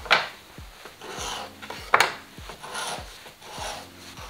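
A sharp kitchen knife sawing through a rolled log of cinnamon-bun dough on a wooden cutting board, with rasping strokes. The blade knocks sharply on the board twice, just at the start and about two seconds in.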